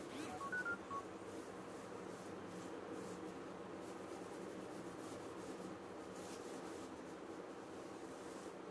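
A quick run of four or five short electronic beeps at different pitches, like phone key tones, in the first second. After them comes a faint soft rustle of a hand rubbing a tracing-paper print onto cloth, over a steady low hum.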